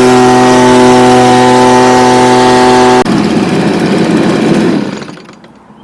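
Stihl BG55 leaf blower's two-stroke engine running steadily at speed on a newly fitted replacement carburetor, then cutting off suddenly about three seconds in; the rush of air from the fan dies away over the next two seconds.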